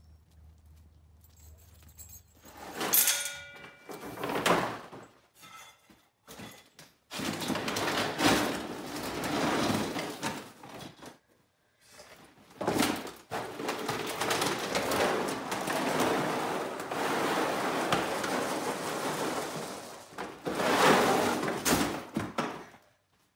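A door being opened with a brief creak and a thunk, then long stretches of dense rustling and rattling as things are handled on and below a workbench.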